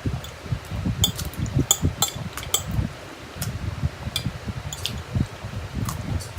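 Close-miked eating of spicy Korean fire noodles: steady, irregular soft chewing with short sharp clicks scattered through.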